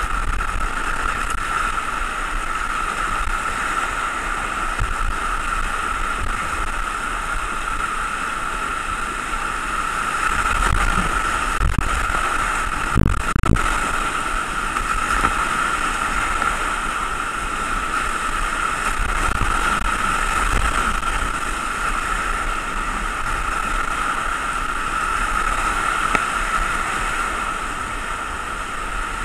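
Whitewater rapids rushing steadily around a kayak, with the splash of paddle strokes. A few low thumps come around the middle.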